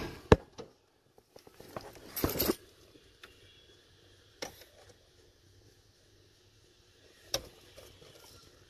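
Car keys jangling and clicking at the ignition: a sharp click just after the start, a short jangle of keys about two seconds in, and a couple of single clicks later. The engine does not crank, because the battery is still disconnected.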